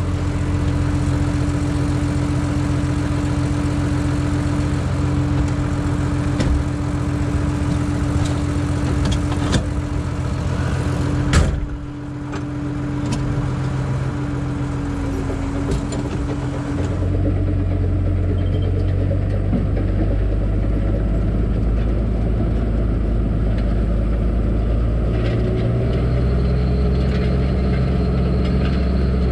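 Case IH 956 tractor's six-cylinder diesel engine idling steadily, with a sharp click about eleven seconds in. From about seventeen seconds it is heard from inside the closed cab, duller and deeper.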